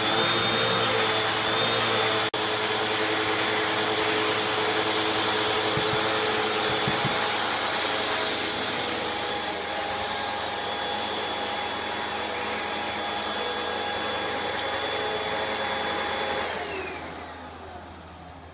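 Vacuum cleaner running with a steady high whine, with a few sharp clicks in the first two seconds. Near the end it is switched off, and its whine falls as the motor spins down.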